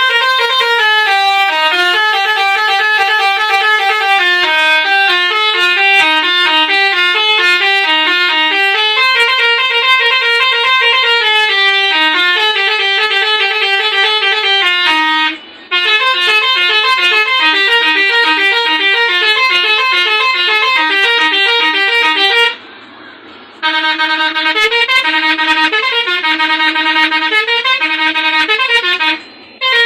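Basuri telolet bus horn module sounding through six horn trumpets, playing fast stepping multi-note melodies. It breaks off briefly about halfway, pauses for about a second a little later, and stops briefly again near the end.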